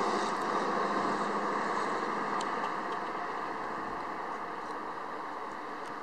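Steady outdoor rushing noise that slowly fades, with a few faint ticks.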